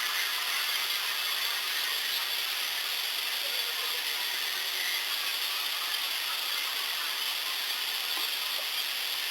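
Steady hiss of a boosted outdoor field recording, with a few faint ticks and no clear call or distinct event.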